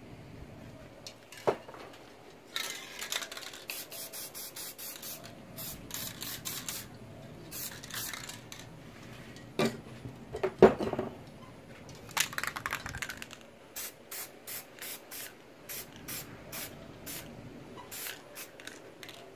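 Aerosol spray paint can spraying in hissing bursts: some longer sprays, then a run of short, quick puffs about twice a second near the end. A few sharp knocks fall in between, the loudest about halfway through.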